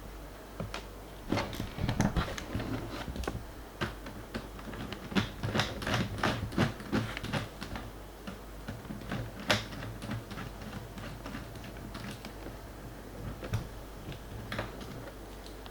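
Irregular light clicks and taps on an Acer Aspire E1-570 laptop's plastic keyboard and case, a few strokes a second, uneven.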